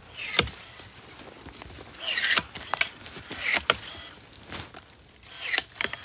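Footsteps crunching through dry fallen leaves and twigs, four steps a second or so apart, with sharp little clicks between them.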